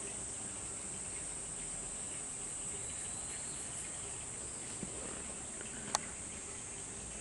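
A steady, high-pitched chorus of insects, with a single sharp click about six seconds in.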